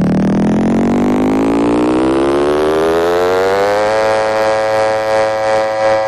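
Electronic synthesizer riser: one pitched tone gliding steadily upward for about four seconds, then levelling off into a held note that starts to pulse unevenly near the end.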